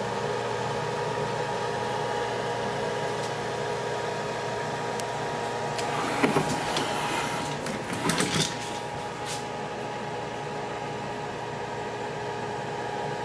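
A steady mechanical hum with a few constant tones, broken by short clicks and rattles of handling about six and eight seconds in.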